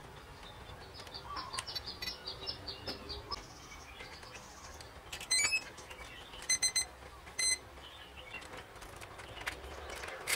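Brushless ESC power-up beeps, played through the motor as the 3-cell LiPo is plugged in: a short run of tones about halfway through, then three quick beeps and a single beep. The three beeps count the battery's three cells, and the last beep signals the ESC is armed.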